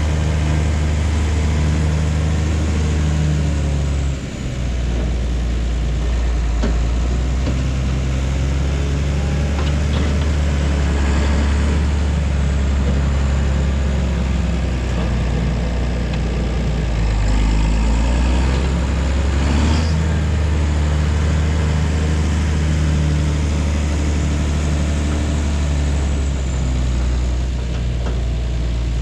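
Large diesel engine running steadily with a deep hum, dipping briefly about four seconds in, with a few faint knocks over it.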